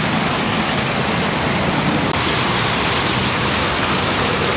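Water from a street fountain splashing over its metal sculpture into the basin: a steady rush of falling water.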